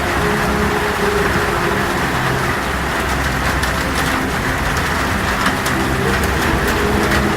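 Heavy rain on a tin roof: a dense, steady rush with sharp drop ticks on the metal growing more frequent in the second half, under a low wavering howl of storm wind.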